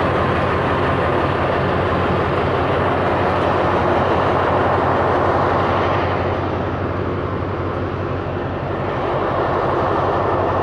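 Alsthom diesel-electric locomotive 4140 idling close up, standing at the platform before departure: a steady low engine hum under a dense rush of noise. It grows a little fainter about six seconds in and comes back near the end.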